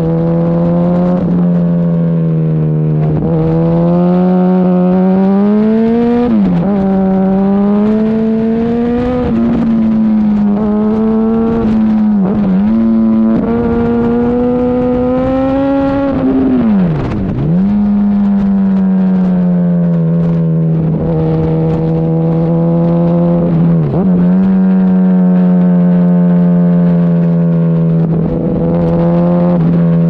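2008 Yamaha R1's 998 cc inline-four engine running under way on a motorcycle. Its pitch climbs gradually and then drops sharply and picks back up four times as the throttle is rolled off and gears change.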